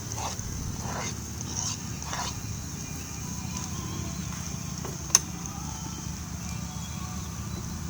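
Steak sizzling on a grill: a steady high hiss, with a few short faint sounds in the first two seconds and a single sharp click about five seconds in.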